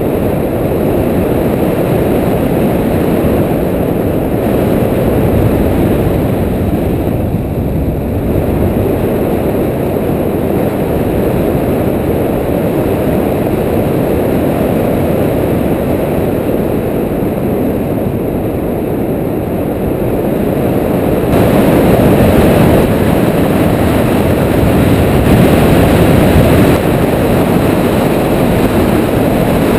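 Loud, steady wind rush from the airflow of a hang glider in flight buffeting a wing-mounted action camera's microphone. About twenty seconds in it grows louder and hissier.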